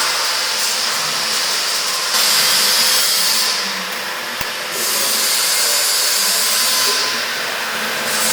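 Robotic welding arc on thin sheet metal, a steady loud hiss that breaks off about three and a half seconds in, starts again a second later, and dies away near the end as the weld seams stop and start. A single brief click about four seconds in.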